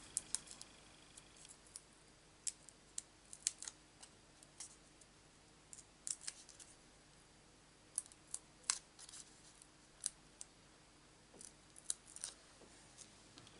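Faint, irregular small ticks and clicks of fingers working with paper and plastic: adhesive dots being peeled from their backing strip and pressed onto a small paper cut-out.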